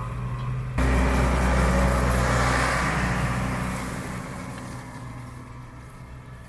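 Tractor engine running steadily under load as it pulls a short disc harrow through paddy stubble, with the rushing noise of the discs cutting soil. It jumps louder about a second in, then fades away over the last few seconds.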